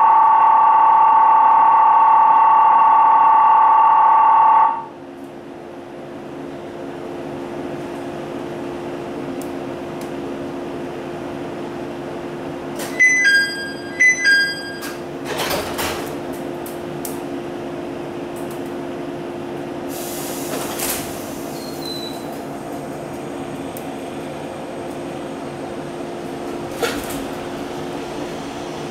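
Inside a parked electric commuter train car: a loud, steady two-tone ringing stops about five seconds in, leaving the steady hum of the train's onboard equipment. About halfway through, a falling two-note chime sounds twice, followed by a few knocks and, a little later, a brief hiss.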